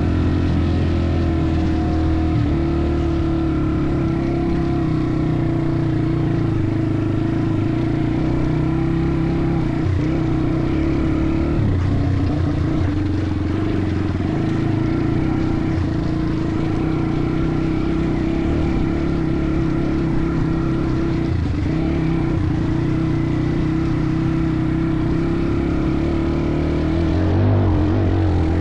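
Off-road motorcycle engine running at fairly steady revs, its pitch stepping up and down slightly a few times, with wind and trail noise underneath.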